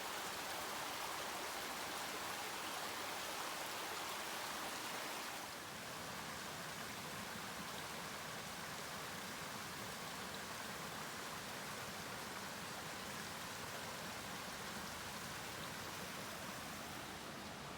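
Rain-swollen mountain stream rushing steadily. About five seconds in it changes to a deeper, fuller rush.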